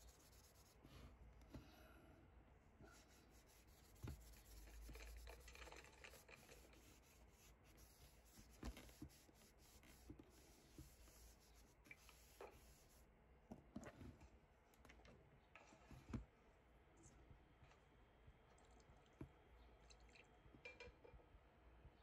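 Near silence: faint room tone with scattered small clicks and light scratching, a few sharper ticks standing out.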